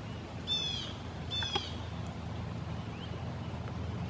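A hawk calling twice, two short downslurred calls under a second apart, over a steady low hum.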